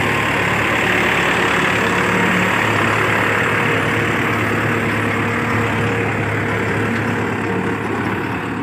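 HMT 7511 tractor's diesel engine running steadily at an even speed.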